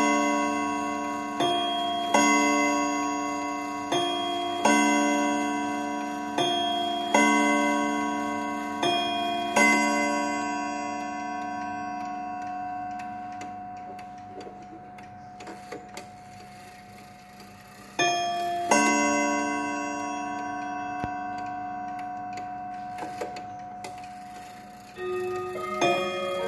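Soviet Jantar striking wall clock chiming: its hammer strikes the chime in a row of ringing notes about a second apart, each one fading away. The notes stop after about ten seconds, and small clicks follow as the hands are turned. A single strike rings out later, and another chime begins near the end.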